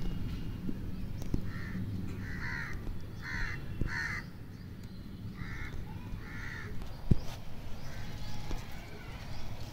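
A crow cawing six times, four harsh caws and then two more after a short pause. A single sharp knock comes about seven seconds in.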